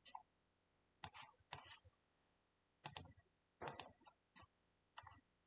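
About half a dozen faint, scattered computer mouse clicks.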